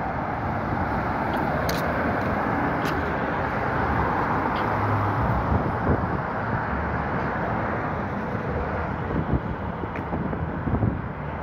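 Road traffic on a busy city street: a steady wash of car and tyre noise from passing vehicles.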